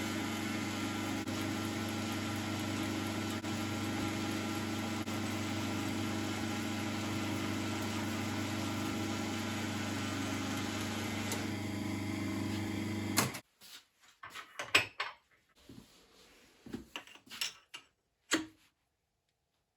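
9-inch South Bend lathe running with a steady hum while a centre hole is drilled, then switched off: the hum cuts off suddenly about 13 seconds in. A few light clicks and knocks follow.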